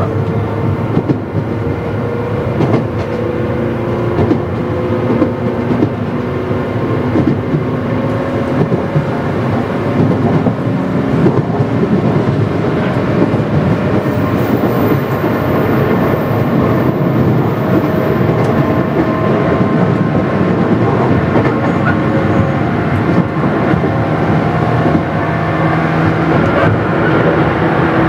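A JR West 117 series 100-subseries electric train running, heard from inside the car. Its traction-motor and gear whine drifts slowly in pitch and rises toward the end, over wheel rumble and the click of rail joints.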